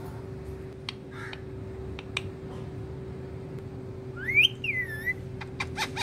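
Indian ringneck parakeet giving a loud whistle that rises and then falls, about four seconds in, with a few short sharp chirps or clicks before it and a quick run of them near the end, over a steady low hum.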